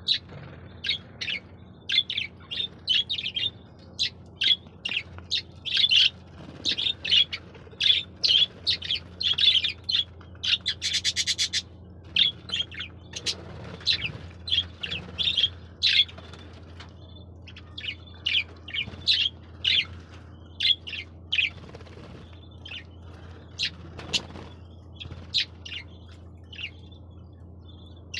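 Budgerigars chirping in quick, short high calls, thick in the first half and sparser later, with a fast rattling trill about eleven seconds in. A low steady hum runs underneath.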